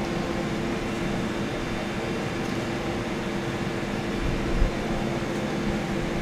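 Steady hum of a kitchen ventilation fan: an even drone with a few constant tones held under it. A single low thump about four and a half seconds in.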